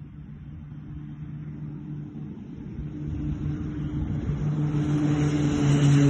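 A steady engine hum that grows steadily louder, its pitch sinking slightly near the end.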